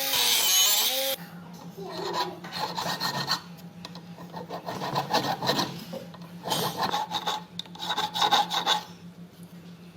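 Rasping, scraping strokes of a file worked back and forth over a metal gear, in several runs of quick strokes with short pauses between them, over a faint steady low hum. A louder power-tool whine and hiss stops about a second in.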